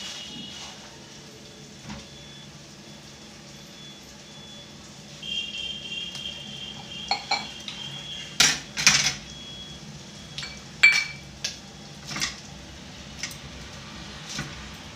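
Metal kitchen pots and utensils clinking and clattering as they are handled: a string of sharp, separate clinks and knocks that starts about five seconds in, over a faint steady background.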